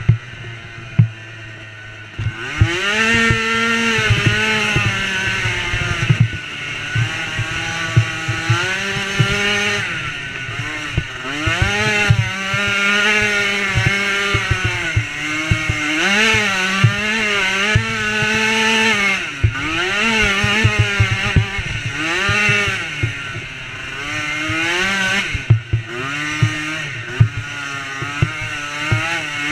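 DRR 90 youth race quad's small engine running hard, its pitch climbing and dropping over and over as the throttle is worked and gears change. It is quieter for the first couple of seconds, then louder. Sharp clattering knocks come through throughout as the machine bounces over rough ground.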